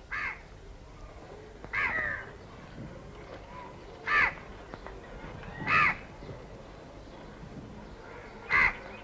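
A crow cawing: five single caws, about two seconds apart.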